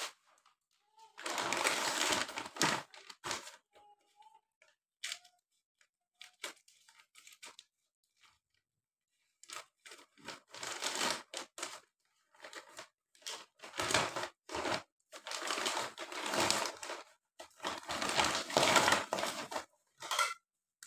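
Plastic packaging bags crinkling and rustling as they are handled and torn open. The sound comes in repeated bursts, with a quieter stretch of small handling noises in the middle.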